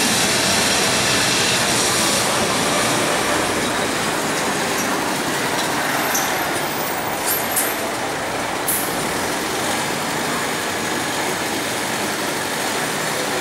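Street traffic noise: a historic electric tram rolling away along its street rails, with cars and a refuse truck running close by.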